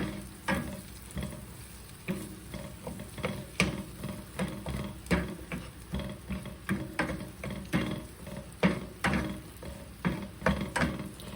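Asparagus being stirred and moved around in a hot pan with a utensil: repeated irregular clicks and scrapes of the utensil against the pan over a steady sizzle of frying.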